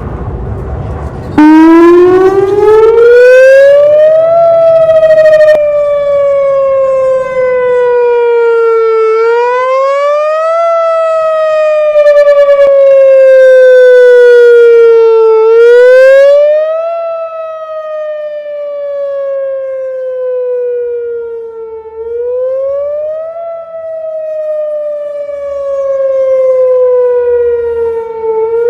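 Whelen Vortex R4 electronic outdoor warning siren sounding its wail. It starts about a second and a half in, each cycle a quick rise in pitch followed by a slow fall, repeating roughly every six seconds. It is loud throughout, and its level swells and fades over the second half.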